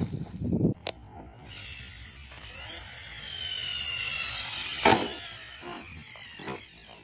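Arrma Kraton RC truck's brushless electric motor whining and falling in pitch while the truck is in the air, broken by sharp knocks of the truck hitting the dirt. The loudest knock, about five seconds in, is its landing, and a smaller one comes as it tumbles near the end.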